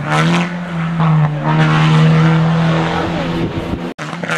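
Seat Leon race car's engine pulling hard at high revs as the car climbs past, a steady strong tone whose pitch wavers and dips about three seconds in. A cut near the end brings in another race car's engine.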